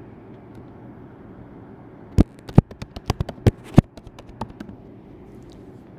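Computer keyboard typing: a quick run of about ten sharp key clicks a couple of seconds in, trailing off into a few fainter taps, over a low steady hiss.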